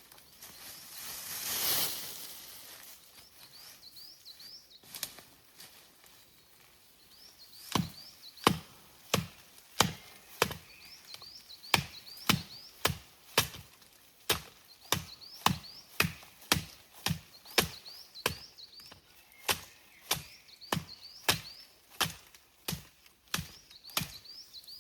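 Steady chopping, a blade striking wood: sharp, evenly paced strokes, about three every two seconds, starting about eight seconds in. Faint high chirps repeat in the background.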